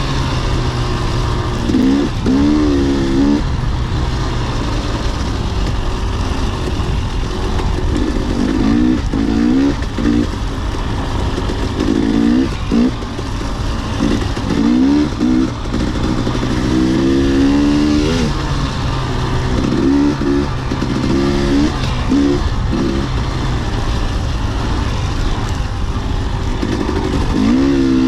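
Dirt bike engine revving up in short rises of pitch every few seconds and dropping back to a lower steady drone between them as the throttle is worked, over a constant rush of noise.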